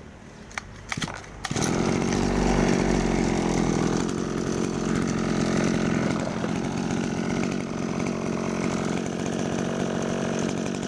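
Mitsubishi TL231 brush cutter's small two-stroke engine: a few light clicks, then the engine starts running about a second and a half in and keeps running steadily.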